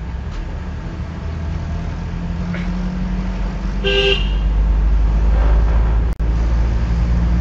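Car engine and road noise heard from inside the cabin at low speed, getting louder as the car picks up a little speed, with a short horn toot about four seconds in.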